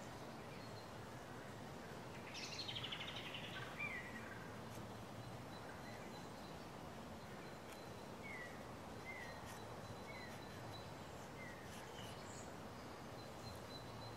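Birdsong: a fast, falling trill about two to four seconds in, then a few short, falling chirps, over a faint outdoor background. Faint scrapes of a knife shaving wood underneath.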